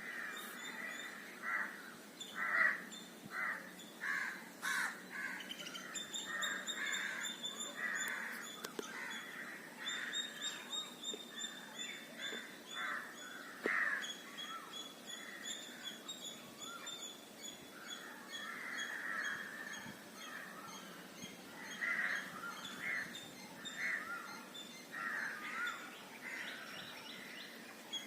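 Birds calling in the open: many short calls repeated throughout, overlapping at times, with a fainter high-pitched run of rapid chirps going on behind them for much of the time.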